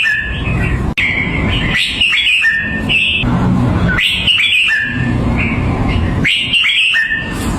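Red-whiskered bulbul singing, repeating short bright whistled phrases about every one to two seconds.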